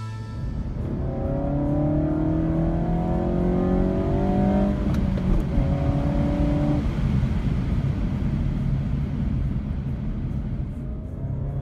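A 2016 Mazda 3's 2.5-litre four-cylinder engine, fitted with a CorkSport short ram air intake, accelerating, heard from inside the cabin. The engine note climbs, drops to a lower pitch about five seconds in at a gear change, eases off, and starts climbing again near the end.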